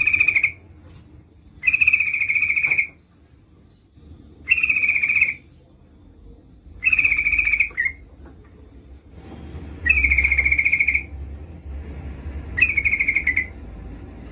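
Yellow-vented bulbul calling: six short chattering calls of about a second each, at a steady pitch, repeated every two to three seconds. The uploader presents it as a female calling to draw a male to answer.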